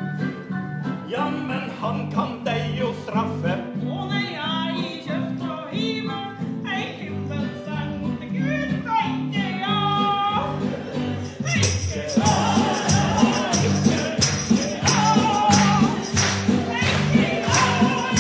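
A woman singing a song to acoustic guitar accompaniment. About twelve seconds in the music turns louder and brighter, with a tambourine shaken in rhythm.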